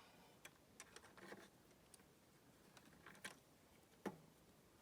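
Near silence with a few faint clicks and light taps from small parts being handled, the sharpest tap about four seconds in.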